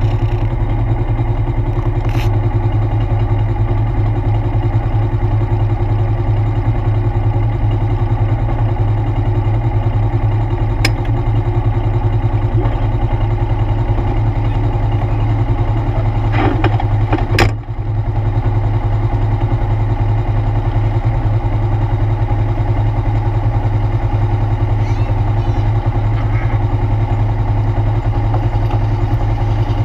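ATV engine running at a steady pace, an even drone throughout. A short clatter or knock a little past halfway.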